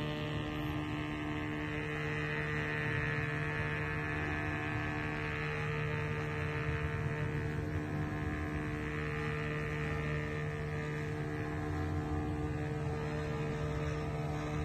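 Wireless thermal tattoo stencil printer feeding stencil paper through as it prints, its feed motor running with a steady hum and a higher whine.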